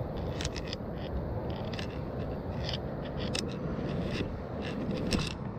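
Scraping and rustling from handling a landed northern pike on a grassy, muddy bank: a series of short scrapes and clicks over a steady low noise.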